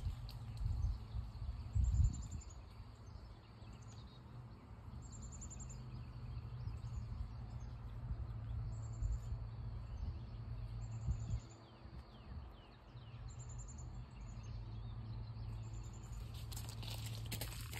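Outdoor ambience: a short, high chirp repeats every one to two seconds over a steady low hum, with a couple of low thumps in the first two seconds.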